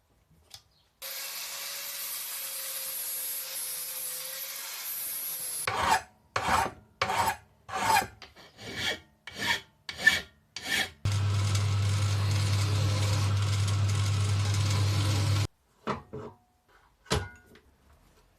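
Workshop tool noise: a steady hiss for about five seconds, then about ten rhythmic rasping strokes like a file or hand saw on wood, then a motor running steadily for about four seconds before it stops suddenly.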